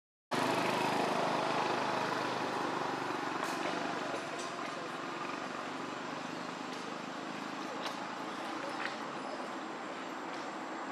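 Steady outdoor background noise, an even hiss and low rumble that eases off slightly, with a few faint clicks; it begins after a brief dropout to silence at the very start.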